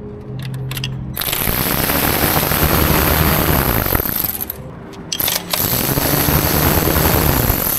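Two long bursts of loud hissing, the first about three seconds long and the second about two, over background music.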